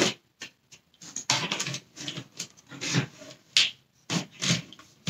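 Plastic cable rewind reel of a Dyson Cinetic Big Ball vacuum turned and handled by hand, its parts rubbing and clicking in irregular bursts as the recoil spring is set.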